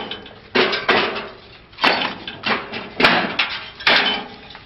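Fired, perforated red clay bricks knocking and clinking against one another as they are handled and set in stacks: sharp, ringing clacks about every half second, some in quick pairs.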